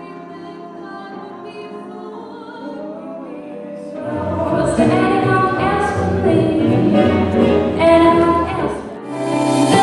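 Music with singing: a quiet, sustained passage that swells about four seconds in into a louder, fuller section with bass, dipping briefly near the end.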